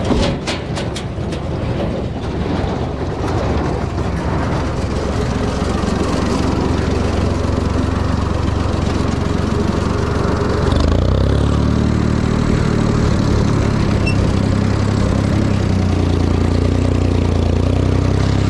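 Ford 4000 farm tractor engine running, with a few sharp clicks in the first second or so. About ten seconds in the engine opens up, louder and fuller, as baling gets under way.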